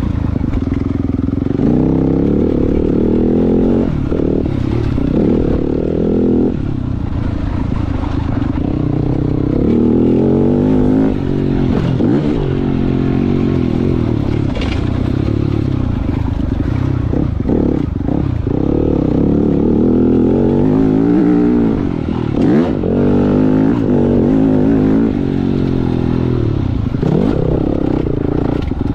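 Yamaha YZ250F four-stroke single-cylinder motocross bike being ridden hard, the engine revving up and dropping back again and again as the throttle opens and closes and the gears change.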